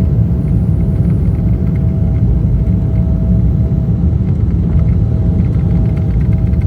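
Cabin noise of a Boeing 777-300ER with its GE90-115B engines running: a loud, steady low rumble with a faint steady tone above it and light rattles.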